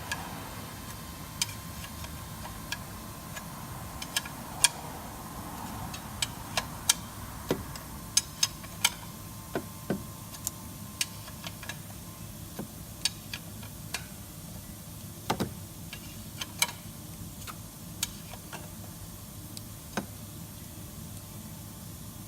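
Irregular sharp metallic clicks and taps, some thirty of them, over a steady faint hiss, as the engine oil sump drain plug is worked loose with a 19 mm spanner.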